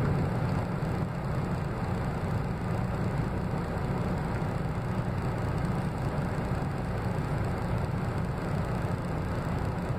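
Steady low rumble of a truck engine idling, heard from inside the cab, with no change in pitch or level.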